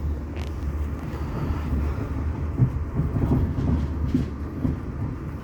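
Passenger train heard from inside the carriage as it runs slowly into a station: a steady low rumble of wheels and running gear with irregular knocks and rattles, one sharper knock about two and a half seconds in.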